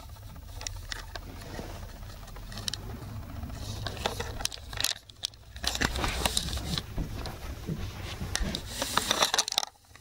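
Soft pattering and scraping from a toy poodle puppy moving about on a rug, with scattered clicks and rustles close to the microphone. The sound briefly dips out about halfway and again just before the end.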